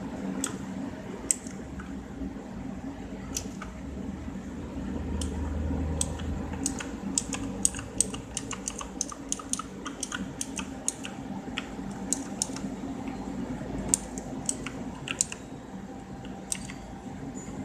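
Typing on a Neolution E-Sport Wizard mechanical keyboard with clicky Kailh Blue switches: irregular sharp keystroke clicks, few at first, then coming faster and denser from about a third of the way in, over a steady low hum.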